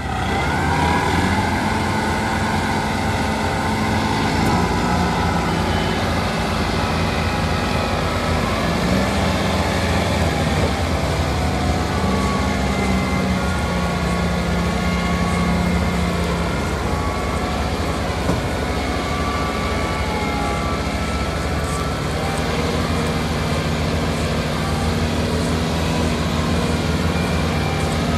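Diesel tractor engine running steadily under heavy load, a deep drone whose pitch shifts up and down a little.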